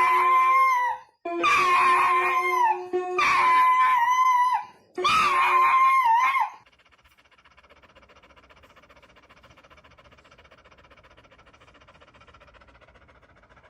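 A dog making a run of long, high-pitched, wavering scream-like cries, about five in a row, which stop about halfway through; after that only faint background sound remains.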